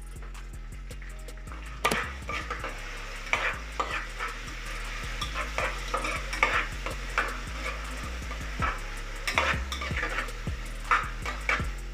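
A spatula stirring and scraping through onions frying in oil with a freshly added green chilli, garlic and ginger paste, the pan sizzling. From about two seconds in come repeated, irregular clinks and scrapes of the spatula against the pan.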